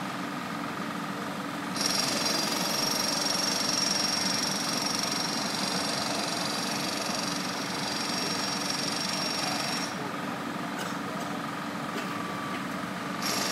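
Road-works machinery: an engine running steadily under a louder, high-pitched powered tool that starts about two seconds in, stops near ten seconds and starts again near the end.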